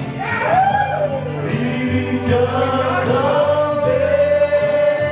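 Karaoke: a man singing into a microphone over backing music, holding one long note through the second half.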